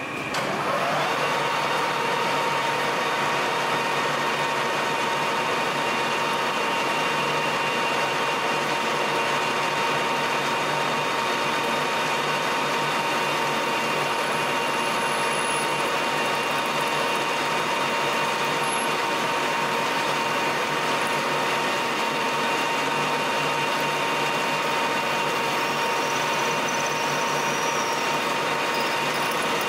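Colchester Master 2500 lathe starting up about half a second in and then running at a steady speed, with a steady gear whine, while a twist drill in the tailstock chuck bores into an aluminium pulley.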